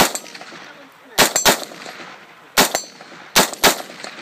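AR-style rifle fired about six times in quick succession at irregular spacing, some shots in fast pairs about a quarter second apart.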